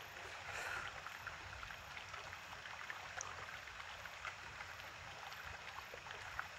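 Faint outdoor ambience: a low rumble of wind on the microphone with a few small scattered clicks.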